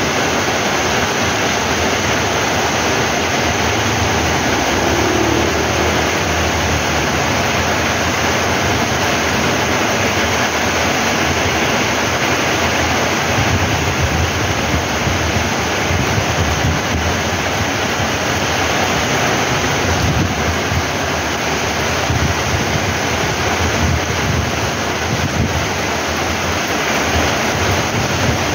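Heavy tropical rain pouring steadily onto a paved street and roofs, an even hiss of downpour. Underneath it there is an uneven low rumble of wind buffeting the microphone.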